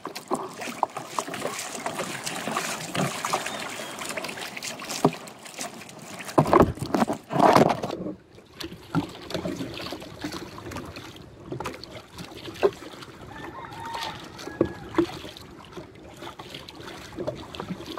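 Water sloshing and splashing against the hull of a small outrigger boat, with scattered knocks and a louder splashy stretch about six to eight seconds in.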